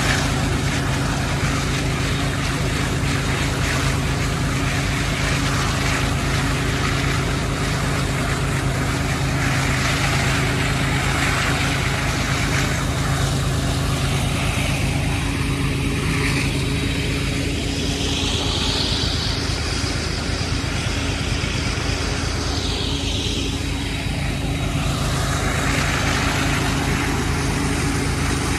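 Diesel-electric freight locomotive engine working hard under load on an upgrade, a steady low drone. Between about 16 and 24 seconds a higher whining tone rises and falls over it.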